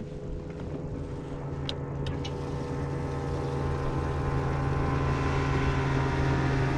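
A motorboat's engine running with a steady hum that slowly grows louder. A few faint clicks come about two seconds in.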